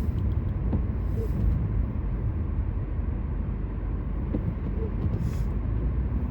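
Steady low road and engine rumble heard inside a moving car's cabin while driving on snowy roads, with two faint, brief hisses about four seconds apart.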